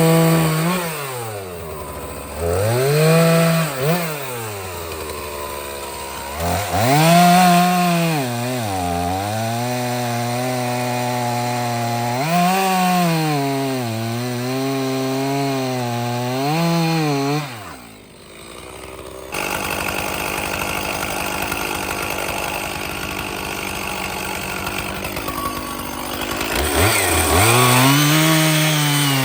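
Stihl two-stroke chainsaw cutting seasoned oak: the engine revs up, then its note drops and wavers as the chain is loaded in the cut, and it revs up and down several times between cuts. About two-thirds of the way in, it settles into a steadier, lower sound for several seconds before revving up again near the end.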